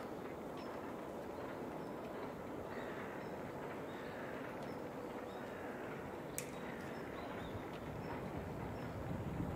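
Steady outdoor background noise, with a single sharp click about six seconds in.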